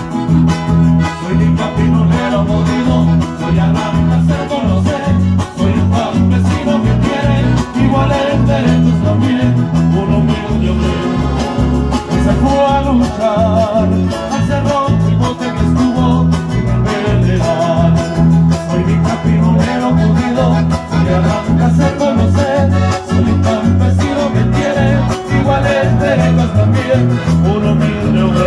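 Live Nicaraguan mazurka-style folk dance music: a Hohner piano accordion plays the melody over a strummed acoustic guitar and steady bass notes.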